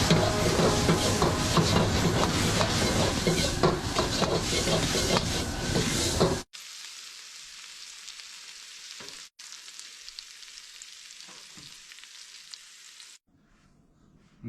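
Cauliflower stir-frying in a wok: loud sizzling with the spatula scraping and clicking against the pan. About six and a half seconds in it cuts to a quieter, steady sizzle, which stops a second or so before the end.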